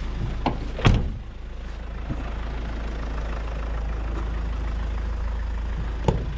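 A van's engine idling with a steady low rumble, a loud knock about a second in and a sharp click near the end.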